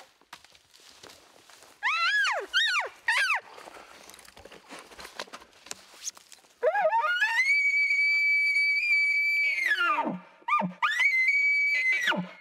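Elk bugle call blown on a bugle tube: three short rising-and-falling squeals about two seconds in, then a long call that climbs to a high whistle held for about three seconds, drops into low grunts, rises to a second shorter high note, and breaks into low grunting chuckles at the end.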